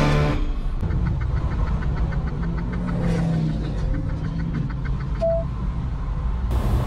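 Semi truck's engine running with a low, steady rumble heard from inside the cab while driving. There is faint even ticking for the first few seconds and a short beep about five seconds in.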